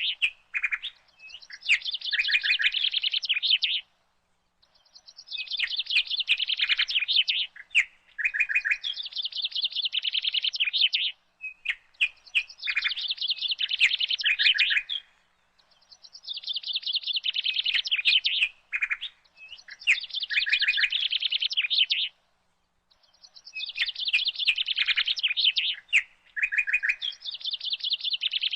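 Birds chattering and calling in repeated bouts of rapid, dense, high-pitched notes, each bout lasting several seconds with brief pauses between.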